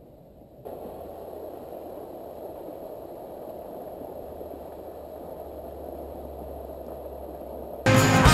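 Fountain jets splashing: a steady rush of falling water that starts suddenly about a second in, after fainter outdoor air noise. Music comes in near the end.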